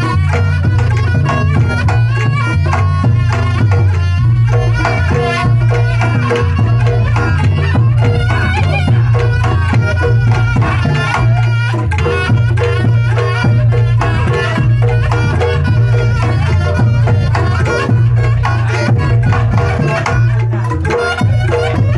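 Reog Ponorogo gamelan playing in dangdut koplo style: a large kendang drum played by hand drives the beat, with strokes on a big hanging gong and small pot gongs, and the slompret reed trumpet playing the wavering melody over it.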